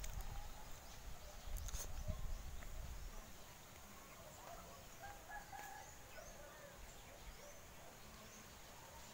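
Faint outdoor ambience with scattered bird calls and short high chirps; a low rumble on the microphone dies away about three seconds in.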